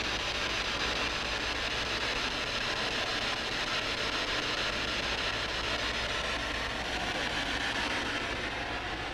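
Spirit box (ghost box radio) scanning through stations, giving a steady hiss of radio static while it waits for an answer.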